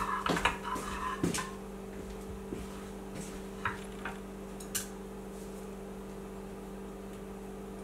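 A steady low hum, with a few light clicks and knocks in the first second or so and two faint ticks a few seconds later.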